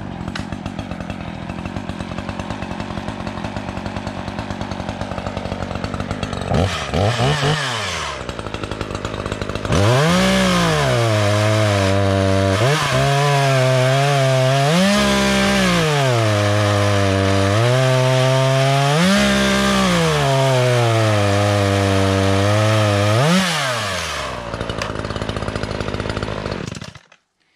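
Echo CS-3510 two-stroke gas chainsaw idling, revved once, then run at full throttle through a fresh-cut oak log, the engine note sagging under load each time the chain bites, about five times. It drops back to idle near the end and cuts off abruptly.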